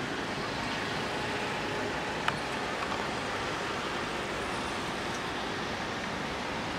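Steady hiss of city traffic on wet roads and rain, with one short sharp click about two seconds in.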